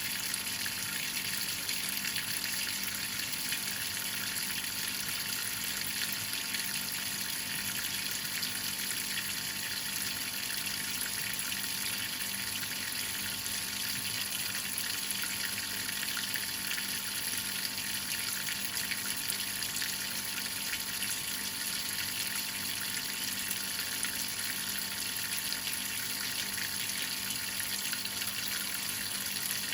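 Whirlpool top-load washing machine with water running steadily in the tub: an even hiss over a faint steady hum, unchanging throughout.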